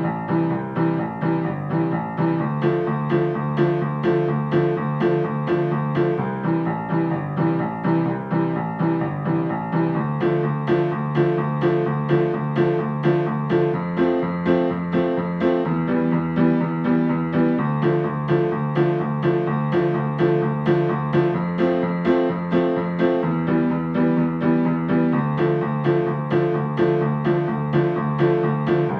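Background music played on a keyboard instrument: a steady, repeating pattern of notes, about two a second, with the chords changing every couple of seconds.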